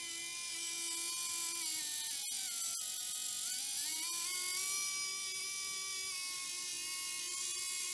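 Small continuous-rotation servo motors on a LEGO car running with a steady electric whine. The pitch drops about two seconds in, then climbs and holds higher as the servos' speed is changed.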